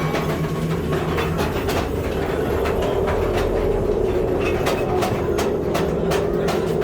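Mine-ride train cars rolling along their track, wheels clacking repeatedly over rail joints over a steady running hum.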